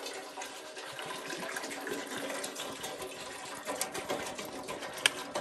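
Water pouring from a plastic water bottle into a stainless steel pot, a steady splashing fill, with a couple of sharp clicks in the second half.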